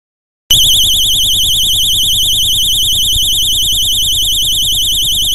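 DNI4000 12 V piezoelectric siren sounding: a loud, high-pitched tone that warbles rapidly up and down. It starts abruptly about half a second in and cuts off suddenly near the end.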